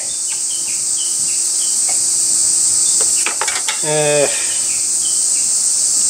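Steady, loud high-pitched buzzing of a cicada chorus, with a few short clicks a little past the middle as the air-conditioner service-port fitting is handled and a brief vocal sound about four seconds in.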